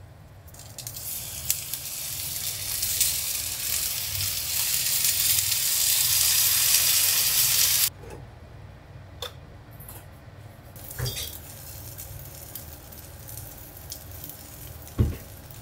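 Gyoza sizzling in a hot frying pan: a loud hiss that swells for several seconds and cuts off suddenly about eight seconds in as the lid goes on. Quieter sizzling with a few light clicks and knocks of pan and lid follows.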